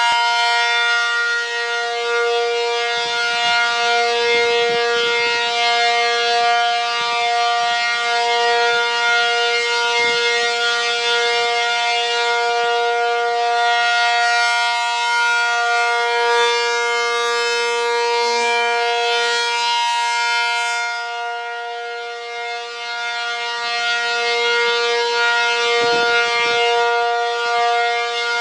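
ACA P-50 outdoor warning siren sounding its monthly test at full speed: one steady wailing tone that swells and fades a little as the horn sweeps round, dipping in loudness about three-quarters of the way through.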